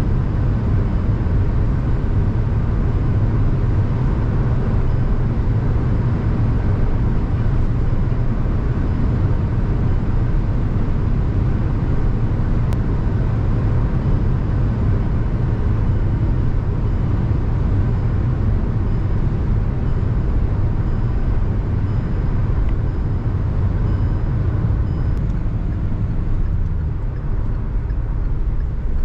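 Kia Sonet's 1.5-litre four-cylinder turbodiesel running hard at high expressway speed, with a steady low drone mixed with tyre and wind noise, easing slightly near the end.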